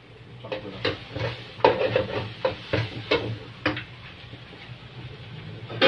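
Metal ladle scraping and knocking against a steel wok while a tofu and tuna mixture is stirred and fried: about a dozen quick, irregular strokes in the first four seconds, then fewer and softer ones. A low sizzle of the frying food runs underneath.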